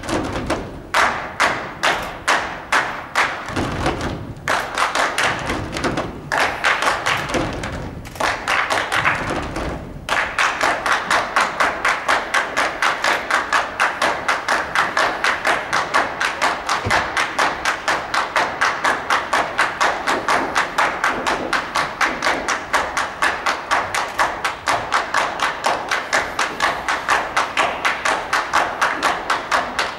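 Percussive rhythm of sharp strikes accompanying the ballet. For about ten seconds the strikes are irregular, mixed with low thuds, then they settle into a steady fast beat of about three to four a second.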